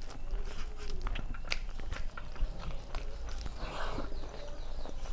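Close-miked chewing of a mouthful of rice and curry, full of small wet mouth clicks, while fingers squish and mix food on a steel plate.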